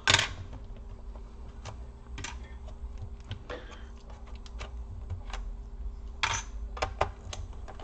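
Small clicks and knocks of hands and a screwdriver handling a laptop's plastic bottom case, with a sharper knock right at the start and a few quick taps near the end, over a faint steady hum.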